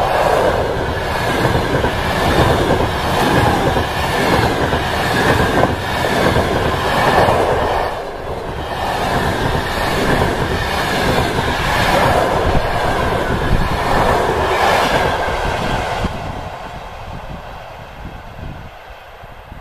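Passenger coaches of a long-distance train passing close by at speed, their wheels clattering over the rail joints, the sound swelling and ebbing as each coach goes by. Past three-quarters of the way through it fades as the train moves away.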